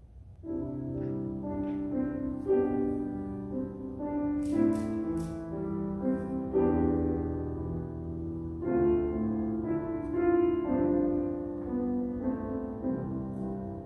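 A handbell choir playing a slow hymn tune in sustained, ringing chords, starting about half a second in.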